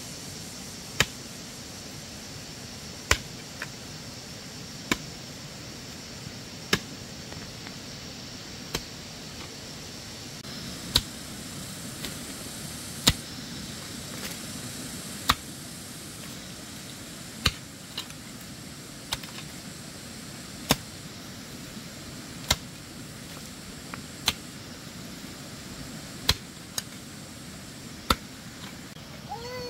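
A hoe chopping into soil in steady strokes, a sharp thud about every two seconds, now and then two strikes close together.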